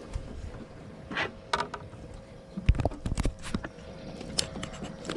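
Scattered clicks, knocks and rustles from a just-landed bass being handled and held up close, over a faint steady hum.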